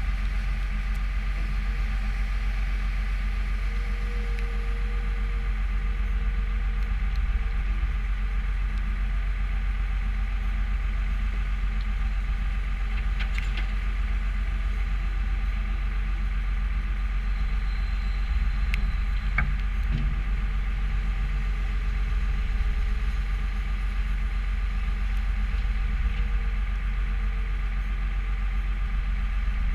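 New Holland skid steer loader's diesel engine running steadily at an even speed.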